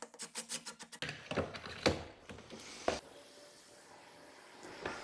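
A quick run of light clicks, then a few separate clicks and taps: small plastic parts being handled.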